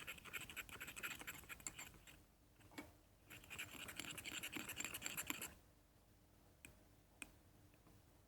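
Faint scratchy rubbing in two spells of about two seconds each, then a few light clicks.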